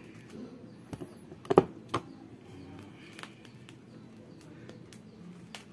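Clear plastic wrapping on a fruit basket crinkling and crackling as hands twist and pull it. A few sharp crackles come between one and two seconds in, the loudest about a second and a half in, then lighter ticking rustles.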